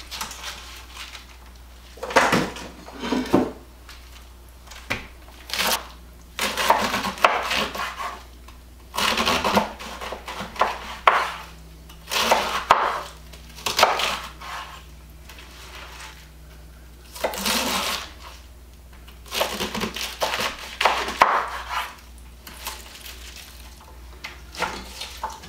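Chef's knife chopping raw cabbage on a bamboo cutting board: crisp cuts through the leaves and knocks of the blade on the wood. They come in bursts of rapid strokes with short pauses between.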